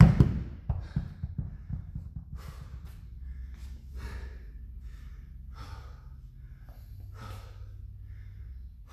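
A pair of 50-pound hex dumbbells hitting a rubber gym floor at the start, with a few fading knocks as they settle. This is followed by hard, gasping breaths about once a second from an athlete recovering between sets.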